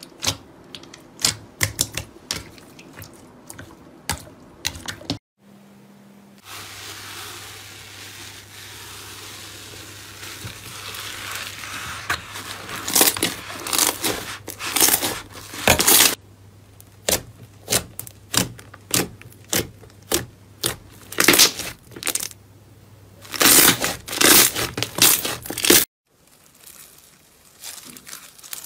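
Hands squeezing, stretching and folding slime, making sticky wet pops and clicks in quick irregular runs. Near the end a bead-filled slime gives a finer, quieter crackle as it is squeezed.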